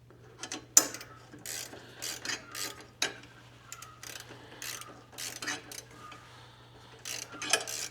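Ratcheting wrench clicking in irregular runs as a bolt on a motorcycle hitch mount is turned, with a few sharper metal clicks among the runs.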